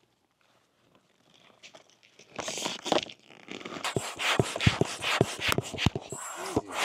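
Handling noise: rustling and scraping with light clicks and thumps, starting about two seconds in after a near-silent start, as of tent fabric and gear being handled.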